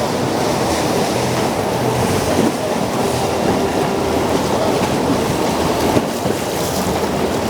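Steady rush of water and wind from a boat under way, with wind buffeting the microphone.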